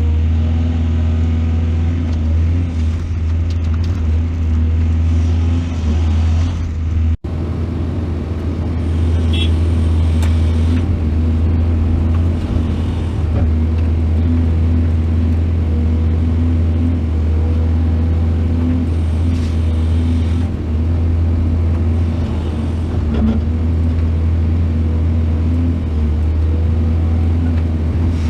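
Heavy excavator diesel engine running steadily, a deep even drone, with a brief sudden break about seven seconds in.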